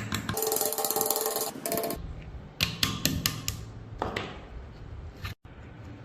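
A fast run of ratchet-like mechanical clicking for about two seconds, then about five separate sharp clicks: a mechanism or tool being worked.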